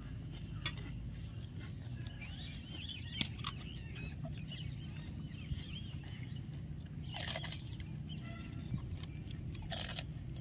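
Small birds chirping over a steady low outdoor rumble, with three short crackles at about three, seven and ten seconds.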